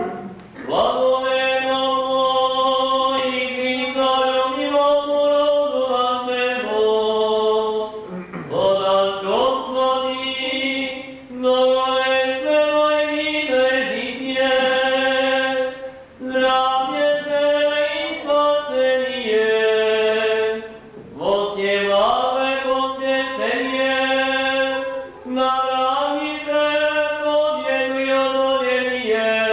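Serbian Orthodox church choir singing liturgical chant a cappella in sustained chords, phrase by phrase with short breaks between.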